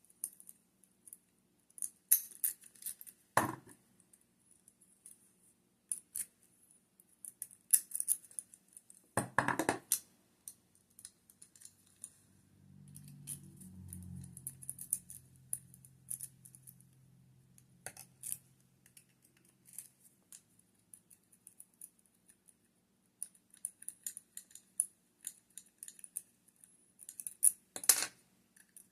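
Lock picks and a tension wrench working in a pin-tumbler lock: a run of small metallic clicks and scrapes, with three louder metal knocks.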